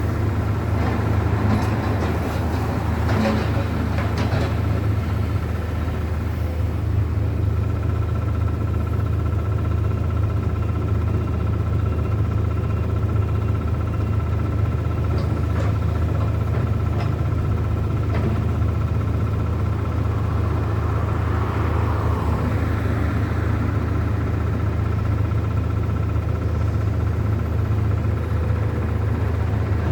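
A large engine running steadily: a continuous low rumble with a thin steady whine above it and a few faint knocks.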